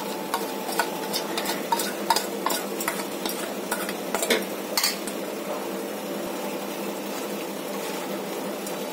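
A steel spoon scrapes and clinks against a steel bowl as a thick yogurt-and-spice marinade is scraped out onto raw chicken, with sharp metal clicks through the first five seconds. After that comes softer, steady stirring as the marinade is mixed into the chicken.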